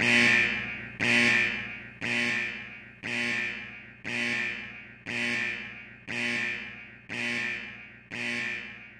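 Music: one ringing, struck note with many overtones, repeated about once a second with the same pitch, each stroke starting sharply and fading before the next.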